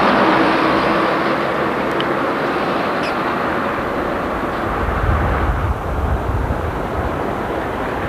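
Steady running noise of a moving car, with a low rumble that comes in about five seconds in.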